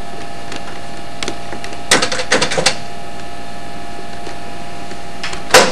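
A desk telephone being handled: a quick run of sharp clicks about two seconds in, then one loud knock near the end.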